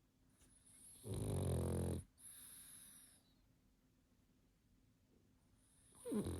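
Pug snoring in its sleep: one loud, low snore about a second in, then a softer breath, and the next snore starting near the end.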